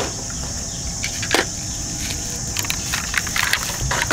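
Plastic toy vehicles clicking and clacking as they are handled and turned in the hands, a few separate clicks with a sharper one about a second in and a cluster near the end, over a steady high-pitched hiss.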